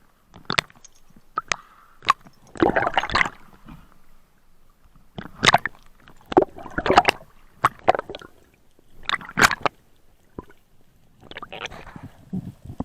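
Water gurgling and splashing close to the microphone in short bursts every few seconds, with sharp clicks in between.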